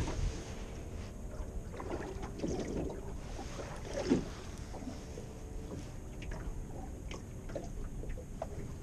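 Small fishing boat at sea: a low rumble of wind and water with a faint steady hum and a few light knocks. One louder knock about four seconds in, as a hand handles the camera.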